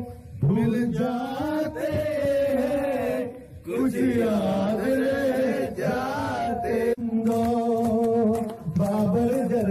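A man singing into a handheld microphone in long, drawn-out notes that slide up and down in pitch, with short breaks between phrases.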